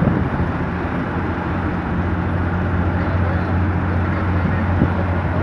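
Ship's deck crane running with a steady low hum while it lowers a suspended truck; the hum grows stronger about two seconds in.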